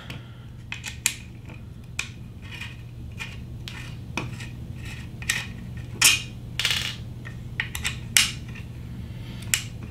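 Irregular small clicks, ticks and scrapes of a tool working out the bolts that hold the fan and fan duct on a LulzBot TAZ 6 3D printer extruder, with the plastic extruder body being handled, over a steady low hum.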